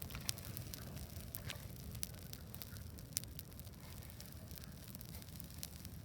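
Wood bonfire burning, with irregular sharp crackles and pops over a low steady rumble; the loudest pop comes about three seconds in.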